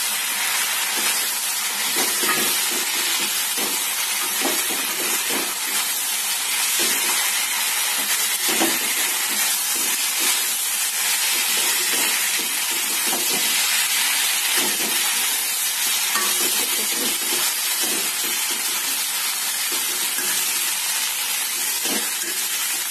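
Potato and soybean chunks sizzling in masala in a steel kadai, with a steady frying hiss, while a metal spatula stirs and scrapes through the pan in irregular strokes. The masala is being stir-fried with the potatoes and soybean.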